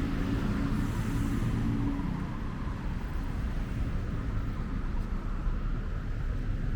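City road traffic: a steady low rumble of vehicles running on a busy street. An engine hum stands out for the first two seconds or so, then fades into the general traffic noise.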